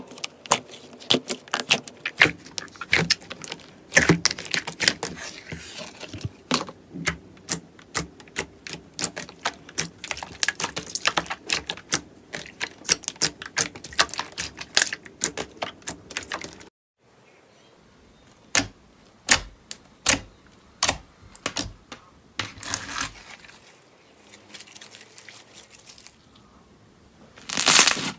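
Slime being squeezed and pressed by hand, giving rapid sharp clicks and pops. About halfway through the sound cuts to a different clip, where the pops come more sparsely with a short crackling swell.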